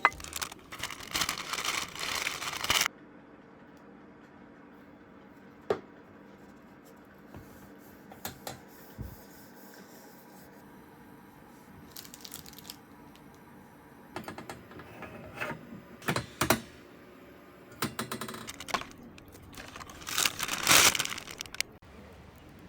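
Music ends about three seconds in. Then come scattered small handling sounds: crinkling and rustling with sharp clicks, and a longer burst of rustling near the end.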